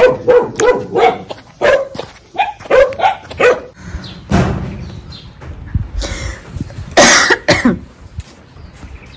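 A dog barking repeatedly, about three barks a second, for the first three and a half seconds. After the barking stops there is a short, loud, noisy sound about seven seconds in.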